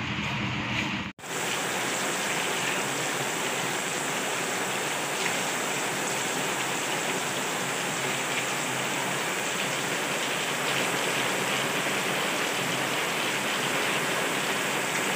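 Steady, heavy rain pouring onto wet ground and puddles. For about the first second there is street traffic noise, which cuts off abruptly.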